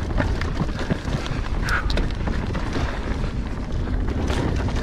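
Marin Rift Zone mountain bike rolling fast down a dirt-and-rock wash: a steady low rumble of wind buffeting the camera's microphone, with the tyres on loose dirt and many short knocks and rattles from the bike over bumps.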